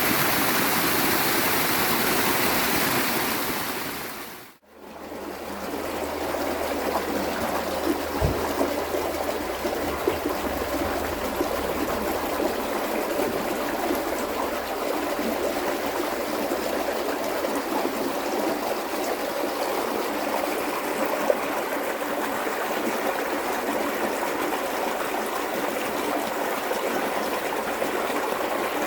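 Falling water of a waterfall rushing, fading out about four and a half seconds in. A flowing river then follows, a steady rushing with gurgles and small splashes.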